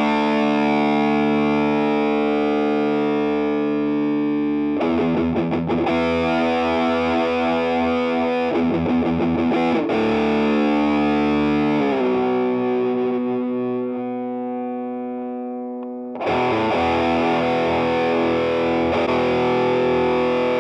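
Charvel CDS-065 electric guitar played with heavy distortion: short bursts of fast-picked notes between long ringing chords, the last chord sliding down and slowly fading. About three-quarters of the way through, another loud distorted guitar passage starts abruptly.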